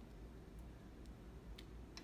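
Near silence: room tone with a low hum and two faint ticks near the end.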